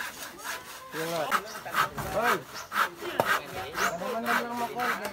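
Hand saw cutting through timber, with steady back-and-forth strokes about two or three a second.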